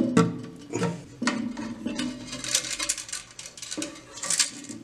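Toilet-tank parts being handled: the rubber flapper valve and the plastic flush-valve fittings clicking, knocking and scraping against each other and the ceramic tank as the flapper is checked and adjusted. A few sharp clicks in the first second and a half, then bursts of rubbing and scraping.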